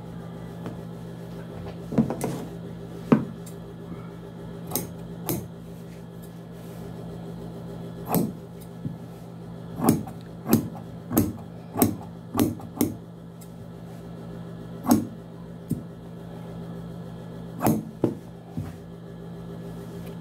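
Tailor's shears snipping through collar fabric and fused interfacing: a series of short, sharp cuts, coming about every half second in a quick run in the middle, over a steady low hum.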